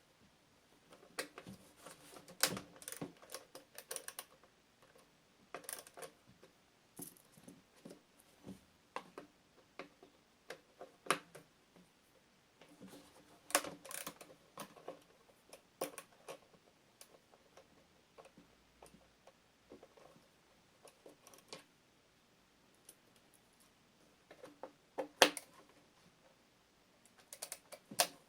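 Scattered clicks, taps and knocks of hand tools and hard plastic housing parts being handled while a leaf blower's outer shell is unscrewed, in irregular clusters with short pauses, the sharpest knock about 25 seconds in.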